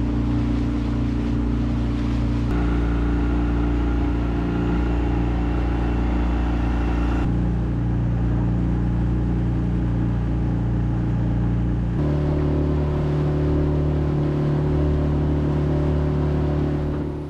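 Small fishing boat's engine running steadily under way at cruising speed, a loud, even drone. Its tone changes abruptly three times where separate recordings are joined.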